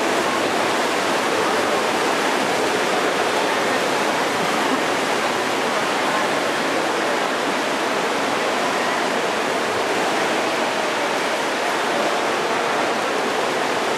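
Steady, even rush of splashing water from a field of racing swimmers kicking and stroking freestyle in an indoor pool.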